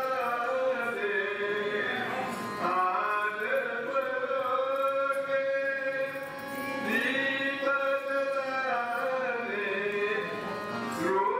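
Background music: one voice singing long held notes that slide slowly between pitches, in an Indian devotional chant style.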